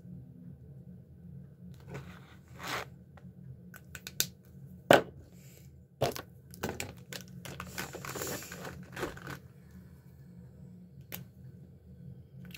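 Plastic markers being handled and swapped: sharp plastic clicks, with the loudest about five seconds in, and stretches of rustling between them.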